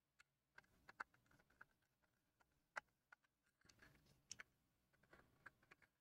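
Faint, scattered clicks and taps of a precision electric screwdriver and small screws against a USB hub's case as it is screwed back together, a dozen or so sharp ticks at uneven spacing.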